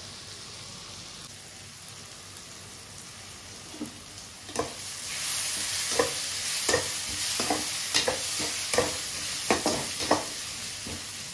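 Chopped vegetables (onion, carrot, capsicum, tomato) sizzling in oil in a kadai. A metal spatula stirs them, knocking and scraping against the pan about once or twice a second through the second half. The sizzle grows louder about five seconds in.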